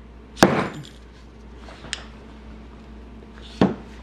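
Fork seal driver being slid down the inner tube and struck against the seal stack: two sharp metal knocks with a short ring, about three seconds apart. Each blow taps the oil seal, washer and bottom bushing further into the recess of the 2014 Suzuki GSX-R750's outer fork tube.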